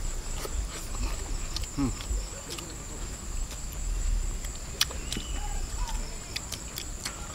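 Eating by hand from ceramic bowls: scattered small clicks of fingers and a spoon against the bowls, with chewing, over a steady high-pitched insect drone.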